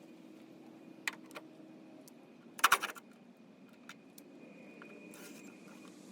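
Small hard parts being handled during wiring harness removal: a few light clicks, then a short clattering rattle about two and a half seconds in, with scattered ticks after it.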